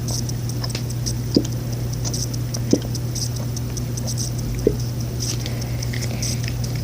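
Slime base of glue, conditioner and shampoo being stirred: small sticky clicks and squelches, with three brief louder squeaks, over a steady low hum.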